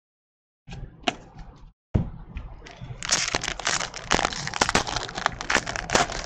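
Crinkling and crackling of trading-card pack wrapping being handled. Scattered at first, then a dense run of sharp crackles from about three seconds in.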